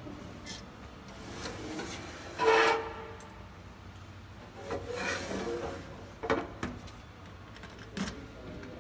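A vending cart's pull-out drawer slides open on its runners with a brief scraping squeal. About two seconds later it is slid shut, followed by several sharp knocks as it closes.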